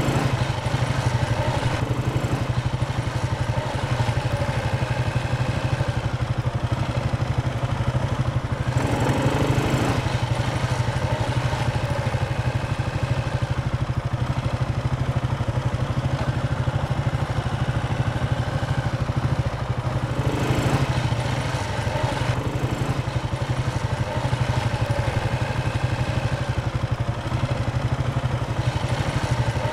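Motorcycle engine running steadily as the bike is ridden along, with two short louder swells about nine and twenty seconds in.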